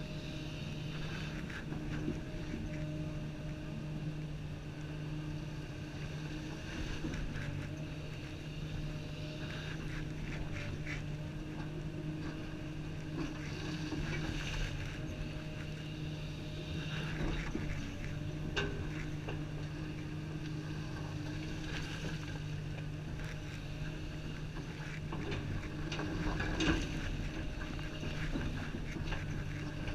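Komatsu 350 excavator's diesel engine running steadily under load with its hydraulics working, heard from inside the operator's cab, with a few short knocks as the bucket works the dirt, the loudest near the end.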